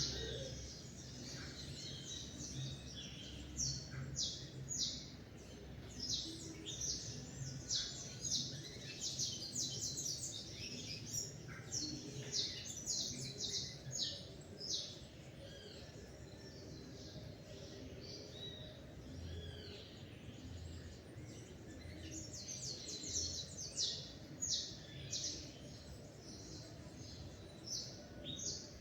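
Several small birds chirping and trilling in a dawn chorus: many short, high chirps come thick and fast, thin out in the middle and pick up again near the end, over a faint low background hum.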